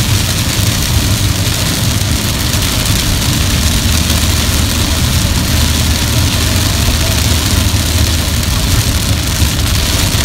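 Heavy rain pelting a car's windshield and roof, heard from inside the moving car over the low rumble of its engine and tyres, steady throughout.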